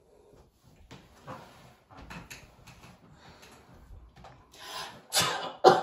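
A person sneezing loudly near the end: a quick rising intake of breath, then an explosive burst with a voiced tail falling in pitch. Before it, only faint clicks and rustling.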